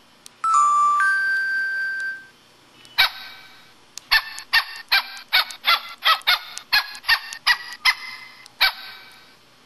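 LG-SD1200 mobile phone playing its built-in sound effects through its small speaker: a short electronic chime melody, then a dog-bark effect barking quickly over and over, about three barks a second.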